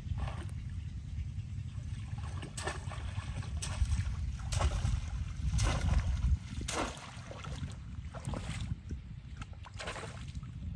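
Repeated splashes and sloshing in shallow water, about one every second or so, from polo fishing with a bamboo cone trap, over a steady low rumble.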